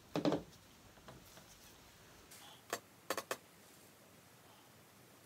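A few light clicks and taps from handling a shotgun barrel set and cotton-swab cleaning tools on a tabletop: a short knock right at the start, then three quick clicks about a second past the middle.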